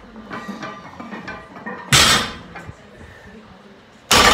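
Two loud sudden clanks about two seconds apart, one near the middle and one at the end, each ringing out briefly: loaded barbells with bumper plates coming down on the rubber gym floor. Faint background music underneath.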